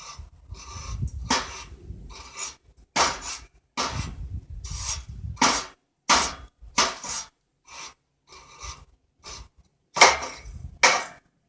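Metal being worked by hand, in a run of irregular scraping strokes, roughly one and a half a second, with a low handling rumble under the first few seconds.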